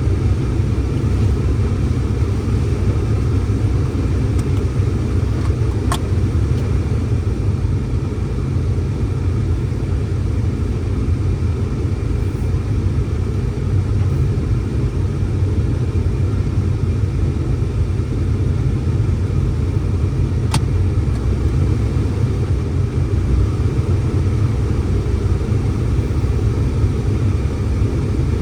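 Strong blizzard wind buffeting the microphone: a steady low rumble, with two faint sharp clicks about six and twenty seconds in.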